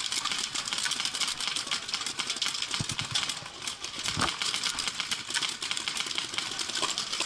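Dense, irregular popping of many paintball markers firing across the field, a steady crackle of shots.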